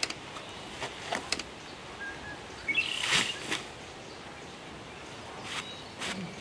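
Rustling and a few knocks as a chainsaw-milled wooden slab is carried off and dropped into the grass and brush, loudest about three seconds in. Faint bird chirps in the background.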